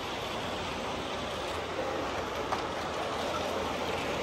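Large-scale model train rolling along its track, a steady running noise over a background hiss, with one small click about two and a half seconds in.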